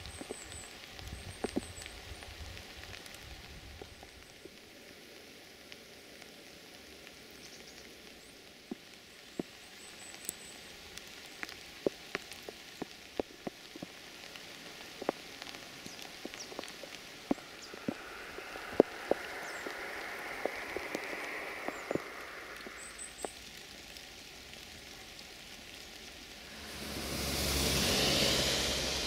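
Steady rain falling, with scattered drops ticking sharply close by. A louder rushing noise swells up near the end.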